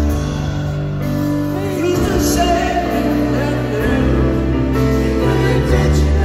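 Live rock band playing in an arena, with sustained bass and keyboard chords and a singing voice that comes in about two seconds in.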